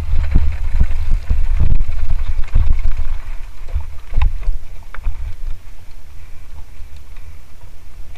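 Wind buffeting the microphone on a mountain bike descent, with sharp knocks and clatter from the Lapierre Zesty 427 full-suspension bike over rough ground; the rumble eases after about three seconds.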